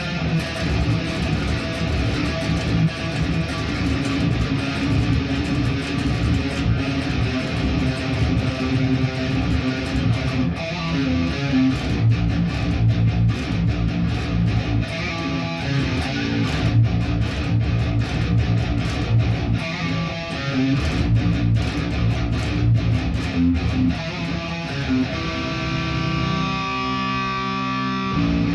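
Guitar practice: a guitar played continuously with quick picked and strummed notes, then a chord held and left ringing near the end.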